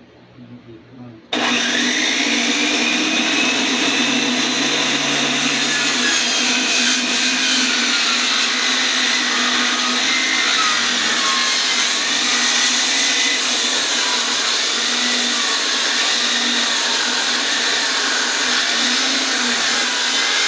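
Electric power saw starting up about a second in and ripping lengthwise through a heavy ash stock, running loud and steady with a whine that wavers as the blade works through the cut.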